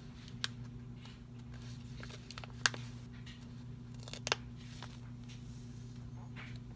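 Paper sticker sheet being handled and peeled: a few small sharp clicks and crinkles, the loudest about two and a half seconds in, over a steady low hum.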